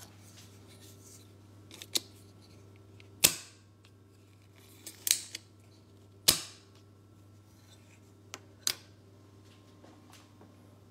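A spring-loaded desoldering pump (solder sucker) being cocked and fired: a run of sharp plastic clicks and snaps, the two loudest about three seconds apart, each with a short ringing tail.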